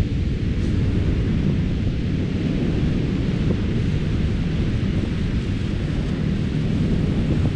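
Wind buffeting the microphone: a steady low rumble with hiss above it.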